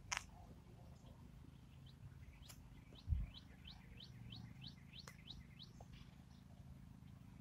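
A songbird singing a quick run of a dozen or so short rising chirps, about four a second, starting about two seconds in. A single dull low thump sounds about three seconds in, over a faint steady low rumble.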